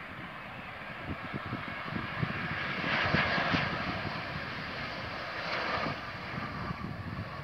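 Airbus A320neo (A320-271N) jet airliner landing: the rush of its Pratt & Whitney geared turbofan engines grows to its loudest about three seconds in, then swells a second time about five and a half seconds in.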